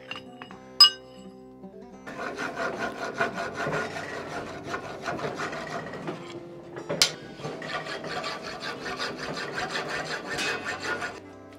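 A file being worked in quick strokes across a red-hot wrought-iron tomahawk head clamped in a leg vise. There is a single sharp metal clank just under a second in and another about seven seconds in. Background music plays underneath.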